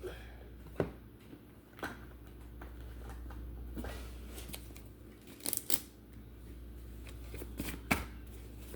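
A deck of cards being handled: a few short, light card snaps and slides, spaced out through a quiet stretch, over a low steady hum.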